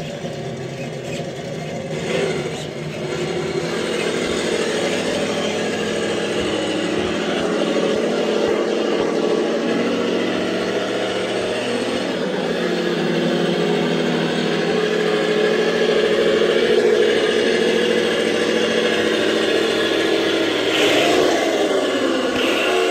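Traxxas TRX-4 K5 Blazer RC crawler's electric motor and geartrain whining continuously as it drives, the pitch rising and falling with the throttle.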